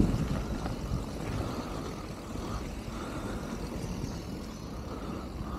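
Canyon Torque mountain bike rolling along a dirt trail: a steady low rumble of tyres on packed dirt.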